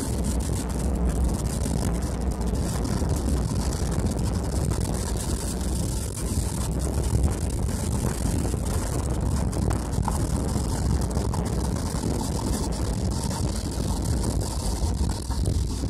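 Car driving in the rain, heard from inside: a steady low rumble of engine and road with a high hiss of tyres and rain over it.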